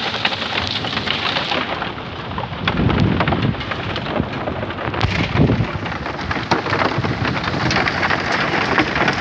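Heavy rain mixed with small hail falling, with many sharp ticks of hailstones and drops striking. Low rumbles swell about three seconds in and again about five and a half seconds in.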